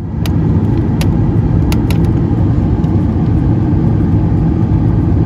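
Steady, loud low rumble of a vehicle in motion, with a few light clicks in the first couple of seconds.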